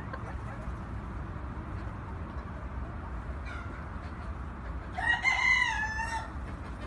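A rooster crows once, a short crow of a little over a second starting about five seconds in. A brief fainter chicken call comes a moment before, over a steady low rumble.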